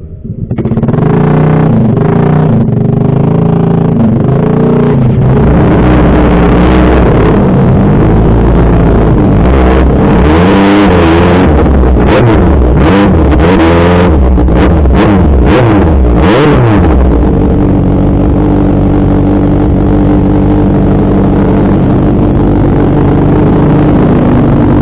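Kawasaki ZX-6R 636 inline-four sport-bike engine starting, then revved with repeated throttle blips. About two-thirds of the way through it settles into a steady idle.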